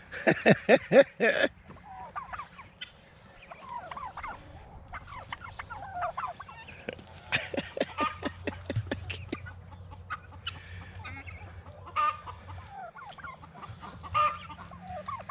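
Backyard chickens clucking and squawking, with loud bursts of rapid repeated calls about a second in and again from about seven to nine seconds, and softer chirps and clucks in between.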